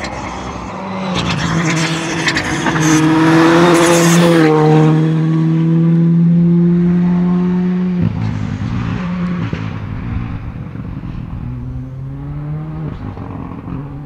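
Ford Fiesta Rally2 car with a turbocharged 1.6-litre four-cylinder engine driving hard past at speed. Its engine note climbs with sharp crackles as it approaches, holds steady, then drops suddenly about eight seconds in and fades as it pulls away.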